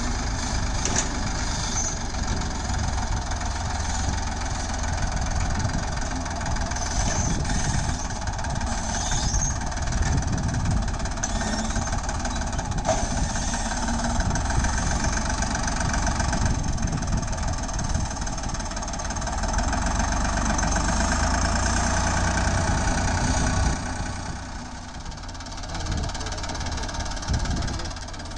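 Ford 3600 tractor's three-cylinder engine running steadily while it pulls a seed drill across a field. Near the end the engine drops to a quieter idle as the tractor stops.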